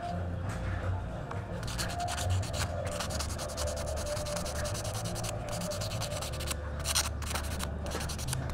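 Sandpaper being rubbed by hand over a small wooden minnow lure body, a run of quick, uneven scratchy strokes.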